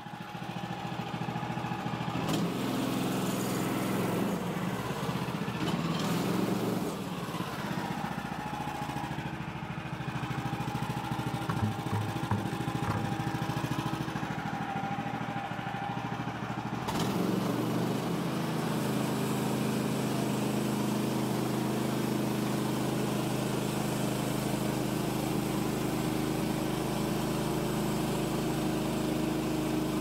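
Woodland Mills HM130 Max band sawmill's gasoline engine running; about seventeen seconds in the sound changes and settles into a steady hum.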